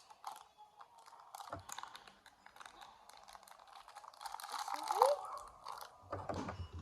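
Plastic packaging crinkling and crackling, with many small clicks, as it is handled and pulled at by hand to get it open. There is a short rising squeak near the end.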